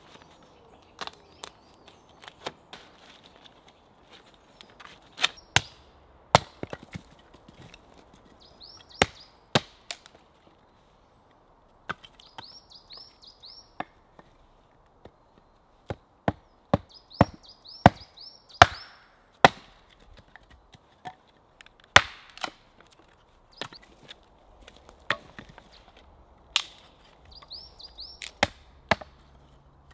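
Hatchet chopping a piece of wood on a wooden chopping block: irregular sharp chops a second or two apart, some loud and some lighter.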